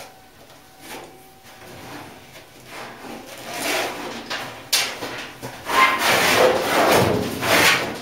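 Roper clothes dryer's metal drum scraping and bumping against the cabinet as it is worked loose and pulled out. There are a few light knocks at first, a sharp knock a little past halfway, and the loudest scraping in the last two seconds.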